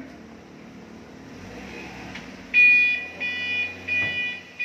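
Livestock truck's reversing beeper sounding as the truck backs up: from about halfway in, three beeps of roughly half a second each, over the low running of the engine.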